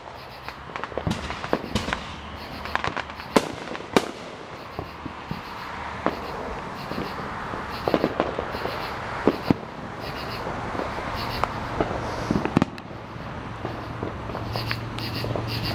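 Many fireworks going off: sharp bangs at irregular intervals, some much louder than others, over a continuous background of more distant fireworks.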